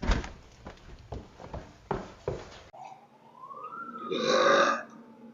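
A loud, drawn-out human burp lasting about a second, coming near the end, picked up by a doorbell security camera's microphone. A few knocks and clicks come before it, and a faint tone glides up and then slowly down under the burp.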